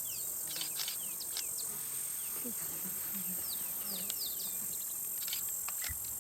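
Bush ambience: a steady high drone of insects, with repeated short, falling bird whistles over it.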